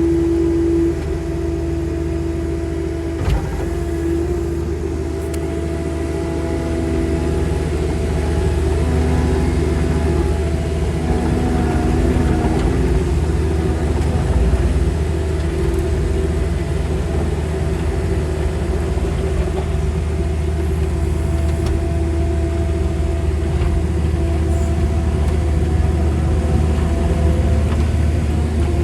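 Skid steer loader running, heard from inside the cab: a steady low engine rumble with a few higher tones that shift in pitch as it works. A single sharp knock comes about three seconds in.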